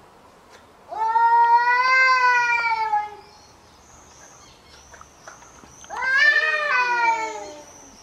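Cat yowling in a standoff with another cat: two long drawn-out, wavering yowls of about two seconds each, one starting about a second in and a louder one around six seconds, the threatening caterwaul of a territorial face-off.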